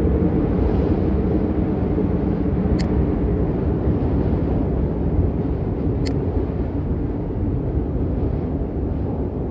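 Storm noise: a loud, steady rumble, like wind or heavy rain hitting the microphone, with two sharp clicks about three seconds apart.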